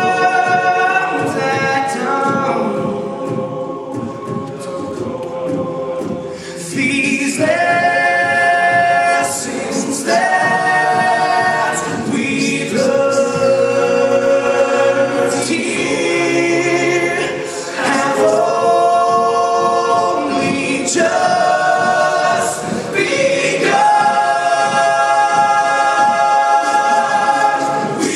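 All-male a cappella group singing in close harmony, holding sustained chords that change every couple of seconds. Softer for a few seconds near the start, then fuller.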